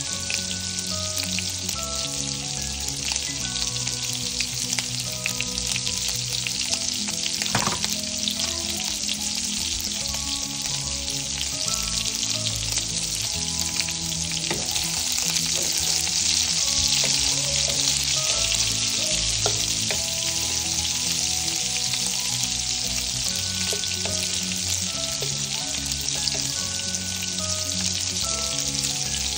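Sliced sausages sizzling steadily in hot oil in a frying pan, a dense crackling hiss that swells a little midway through.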